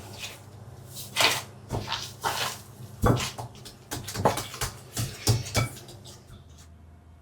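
Kitchen items being handled: a quick series of knocks, taps and short clatters that stop about a second before the end, over a low steady hum.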